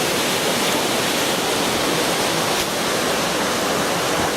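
Waterfall: a steady, fairly loud rush of falling water.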